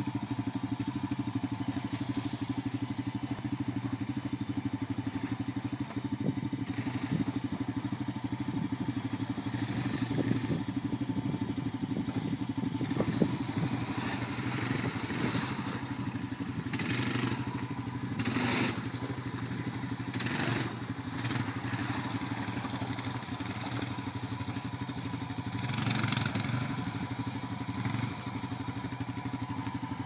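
Yamaha Bear Tracker ATV's single-cylinder four-stroke engine running steadily at low revs while crawling through a rutted creek bed. Several brief noisy bursts come in the second half.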